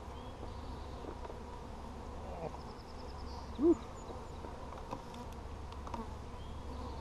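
Honey bees buzzing steadily around an open hive. About halfway through, a bee passes close to the microphone with a brief loud buzz that rises and falls in pitch, and a few light clicks follow.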